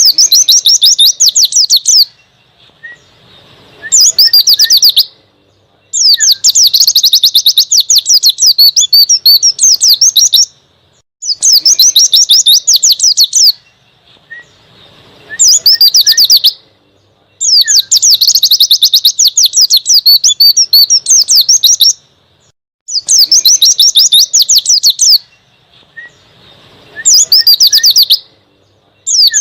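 White-eye (pleci) singing vigorously in wild-style ('ngalas') song: rapid, high twittering phrases of one to four seconds, repeated again and again with short pauses, with faint single chirps in some of the gaps.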